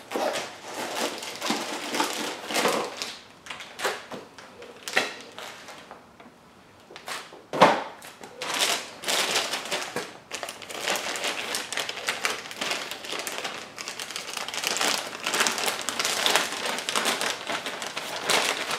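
A clear plastic packaging bag crinkling and rustling as it is handled and opened, in an irregular stream of crackles. A single sharper knock comes about seven and a half seconds in.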